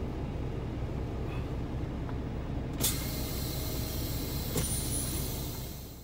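Semi-truck diesel engine idling with a steady low rumble, heard inside the cab. About three seconds in, a sudden hiss of compressed air from the truck's air brake system starts and keeps going, with a click partway through, typical of the brakes being released before pulling out.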